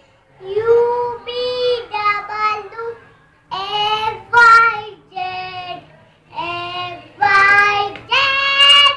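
A young girl singing unaccompanied, in short phrases of held notes with brief pauses about three and six seconds in.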